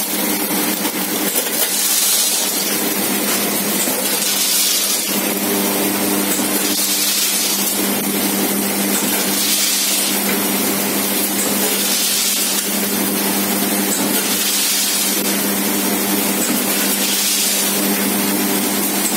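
Automatic form-fill-seal pasta packing machine running with a steady motor hum and a burst of hiss about every two and a half seconds, one per packing cycle as its pneumatic cylinders work the sealing jaws.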